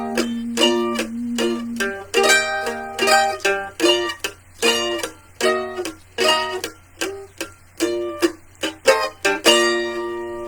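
Instrumental ending of a song: a plucked string instrument strumming chords in a steady rhythm, over a held note that stops about two seconds in. It closes on a final chord near the end that rings on and fades.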